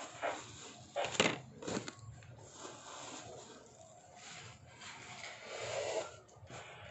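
Things and packaging being handled: rustling and scraping, with sharp clatters about one and two seconds in.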